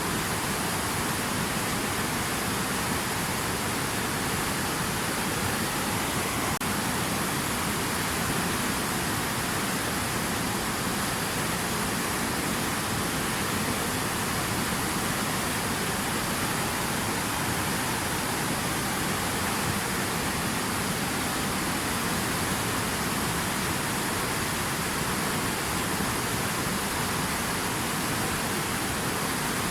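Steady rushing water: an even, unbroken hiss that does not change.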